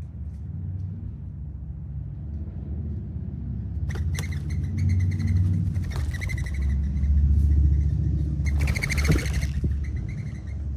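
A passing vehicle's low rumble, swelling to its loudest about seven seconds in. Over it, from about four seconds in, come high chirps and rapid fluttering, with the densest flurry just before nine seconds, as mourning doves flush off the birdbath.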